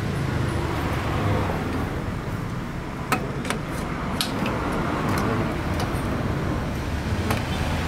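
A steady low vehicle rumble in the background, with about five sharp metal clicks as the stainless exhaust header pipe is worked into place under the scooter, the loudest about three seconds in.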